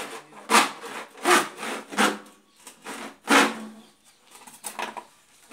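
Hand saw cutting through the bottom of a tank in uneven back-and-forth rasping strokes, about one a second, growing weaker near the end.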